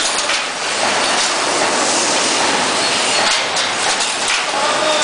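Automatic copper tube straightening and cutting machine running, a loud, steady mechanical rattle with faint irregular clicks.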